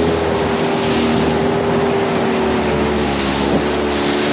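Outboard motor of a small boat under way at steady speed, with a constant hum, and rushing spray and water against the hull that swell every second or so as the bow runs through the chop.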